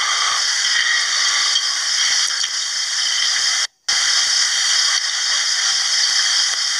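Steady, fairly loud hiss of background noise with no voice, cutting out completely for a split second near the middle.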